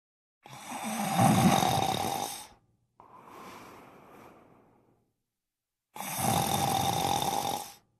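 A person snoring. Two long, loud snores come about six seconds apart, and each is followed by a quieter, shorter breath.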